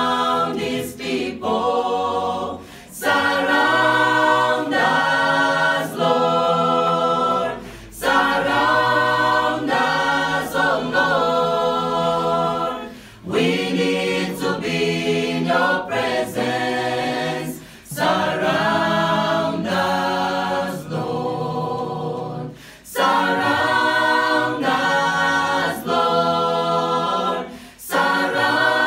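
Mixed-voice choir of men and women singing a cappella in harmony, with no instruments. The singing comes in phrases of about five seconds, each followed by a brief break.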